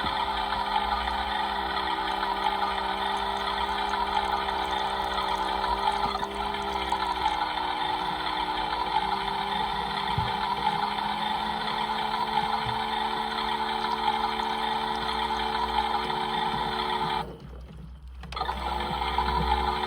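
Small electric motor of a Theo Klein toy washing machine running, turning the drum with water in it, with a wavering whine. Near the end it stops for about a second, then starts again with a rising whine.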